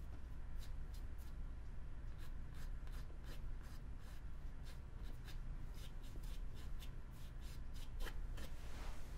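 Paintbrush dabbing and stroking acrylic paint onto a stretched canvas: a run of short, irregular taps and scratches, a few a second, over a steady low hum.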